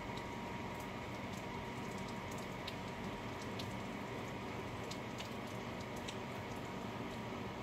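Steady rain, an even hiss with irregular drops ticking close by.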